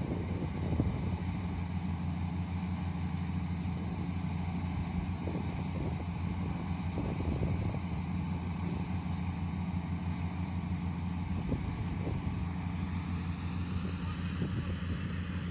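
Yanmar YH470 rice combine harvester running steadily, a constant engine drone with no change in pitch.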